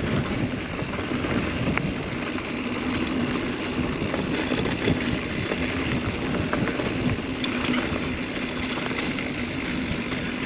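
Steady wind rush and low rumble on the microphone of a mountain biker riding a hard-packed dirt trail, with a faint steady hum and scattered light rattles.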